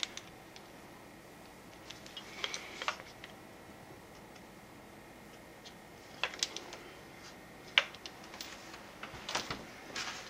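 Handling noise from an AR-15 rifle: scattered sharp clicks and clacks in small clusters, with the sharpest single click a little after the middle.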